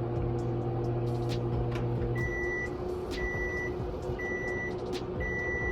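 Microwave oven running with a steady hum that stops about two seconds in, followed by four high beeps about a second apart, signalling the end of the heating cycle.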